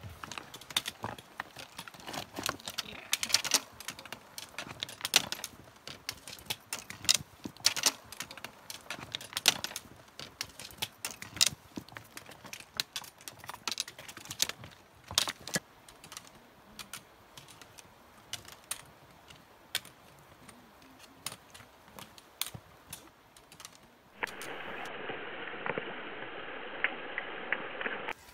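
Trekking-pole tips and boots clicking and clattering on loose rocks and stones, in many sharp irregular clicks. About twenty-four seconds in, this gives way abruptly to a steady rush of water as hikers wade across a shallow river.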